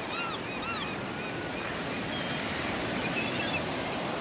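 Harbour ambience: a steady wash of waves, with birds calling in short arched cries, a quick run of them in the first second and a few more after about two seconds.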